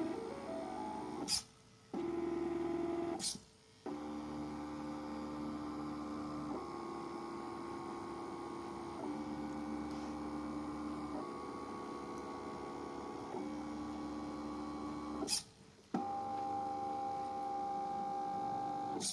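Stepper motors of a homemade AxiDraw-style pen plotter whining as it draws, the pitch jumping to a new steady note every couple of seconds. Sharp clicks come three or four times, each followed by a brief pause in the motor sound.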